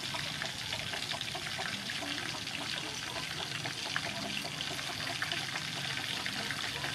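Breaded chicken wings deep-frying in a pan of hot oil: a steady, dense sizzle with fine crackling.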